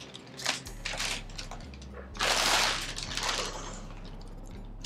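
Plastic poly mailer bag rustling and crinkling as it is handled, with a short rustle near the start and a louder, longer burst about two seconds in.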